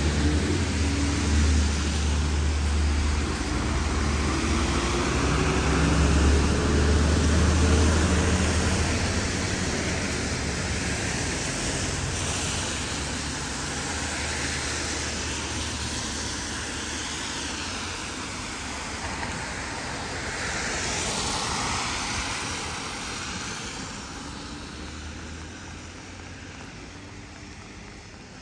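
Passing road traffic. A motor vehicle's engine rumble is loud for the first several seconds, then gives way to a hiss of tyre and road noise that slowly fades, and a second vehicle passes about three-quarters of the way in.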